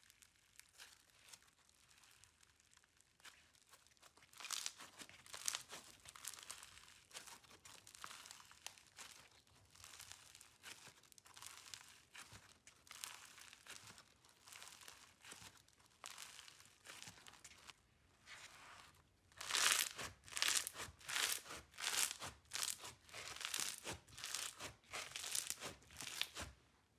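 Foam-bead (floam) slime being kneaded and squeezed by hand, crackling and crunching as the beads are pressed together. About two-thirds of the way through, a run of louder crackles comes at about one or two a second with each squeeze.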